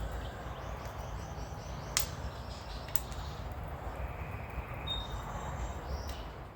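Two sharp metallic clicks of thrust-plate bolts being handled and fitted into a TD42 engine block, over a steady background hum.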